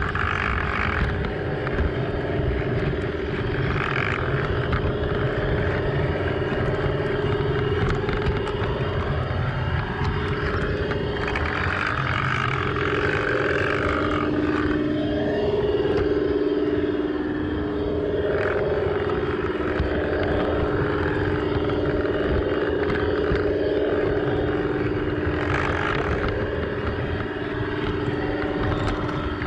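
LGB garden-scale model locomotive running along its track, its electric motor and gearbox whining steadily over the rolling rumble of the wheels. The whine dips in pitch about halfway through, then holds steady again.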